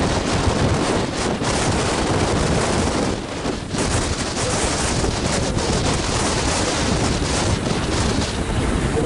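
Wind buffeting the microphone over the steady roar of a small single-engine jet trainer's turbojet as it flies past.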